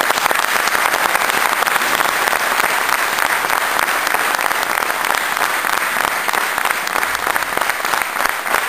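Large crowd applauding: dense, sustained clapping of many hands at full volume.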